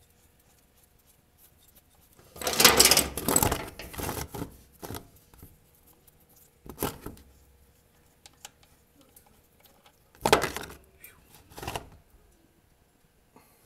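Intermittent handling rustle and light metallic clinks as fingers work a hot transmission drain plug loose on a motorcycle, in a few short bursts several seconds apart, the longest about two seconds in.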